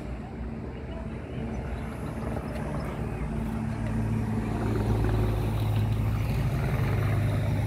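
A steady engine drone holding one pitch, growing louder about halfway through, with voices in the background.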